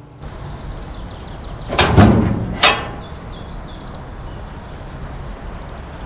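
Heavy metal gate being opened: a loud grating rush about two seconds in, then a sharp metallic clang about half a second later, over steady outdoor background noise.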